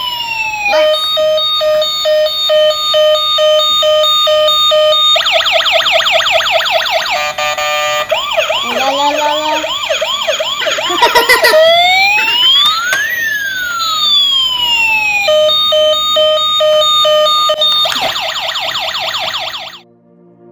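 Electronic toy 911 fire engine ambulance van playing its siren sounds, cycling through patterns: a pulsing two-tone alarm, a fast warbling wail, chirping yelps and slow rising and falling sweeps. The pulsing tone and fast warble come back before it cuts off suddenly near the end.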